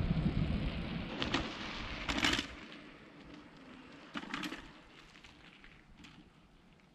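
Wind rumbling on the microphone during a bike ride, dying away about two and a half seconds in, with a few short crackling rustles.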